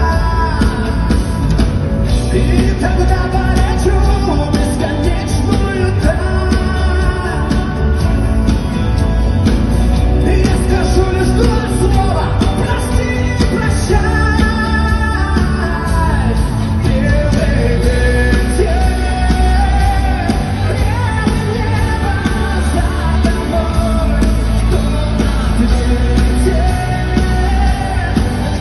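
Loud live pop-rock band playing with heavy bass and a sung melody, as heard through a concert PA.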